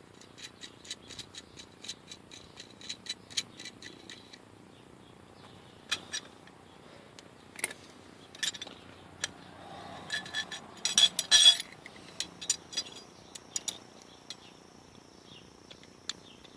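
Small metal clicks and clinks of hand tools as nuts are run and double-nutted onto a threaded all-thread rod. There is a quick, even run of clicks for about four seconds, scattered taps after that, and a louder cluster of clinks about eleven seconds in. A faint, high, steady whistle comes in near the end.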